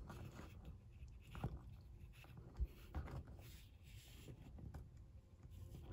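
Faint handling noise of hands posing a plastic action figure on a diorama: soft scraping and rubbing with a few light knocks.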